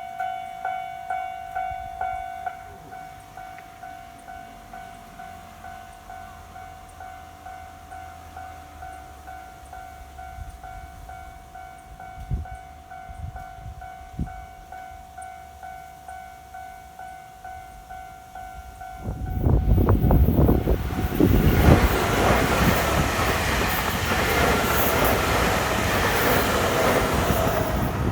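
Japanese railway level-crossing warning bell ringing at about two strokes a second, dropping to a quieter level a couple of seconds in. About 19 s in, a Nankai Koya Line train passes over the crossing, its running noise and wheel clatter drowning the bell.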